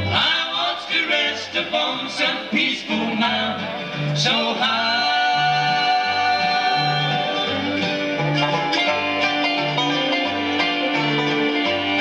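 Live bluegrass band playing: five-string banjo and mandolin over an upright bass walking a steady two-note line, choppy and plucked at first, then with long held melody notes from about four seconds in.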